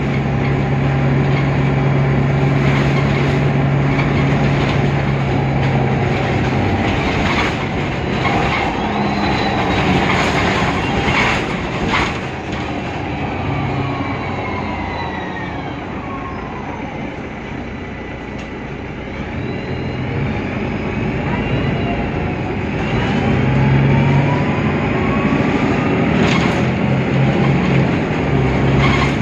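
Mercedes-Benz Citaro city bus's OM 906 hLA diesel and Voith DIWA automatic gearbox running under way, heard on board: a steady low drone, with high whining tones that glide down in pitch and then rise again. A sharp knock sounds about twelve seconds in.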